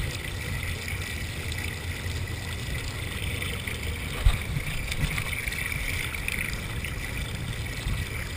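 Steady low rumble with a hiss over it, as heard through GoPro camera microphones, with a single knock about four seconds in.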